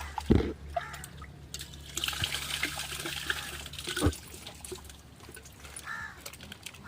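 Water trickling and splashing, with a couple of dull knocks, one near the start and one about four seconds in.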